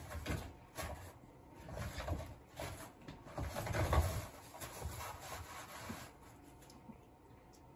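Toilet paper rustling and tearing in irregular bursts as a cat bites and paws at the roll on its holder, loudest about four seconds in. It dies down about six seconds in.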